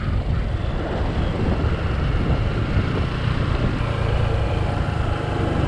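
Motorcycle riding along the road: a steady engine drone under the rush of wind and road noise.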